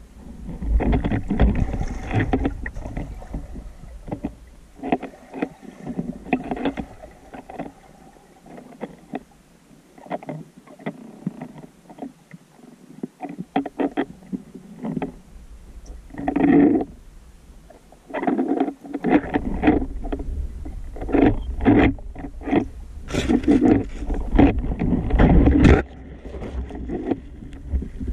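Underwater sloshing and knocking from a spearfisher swimming with a camera-mounted speargun, picked up through the camera's housing in irregular surges. It eases off through the middle and turns into a heavier low rumble for several seconds in the second half.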